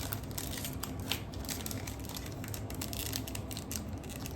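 Crinkling and crackling of a Bowman trading-card pack wrapper being torn open and handled, with many small irregular crackles.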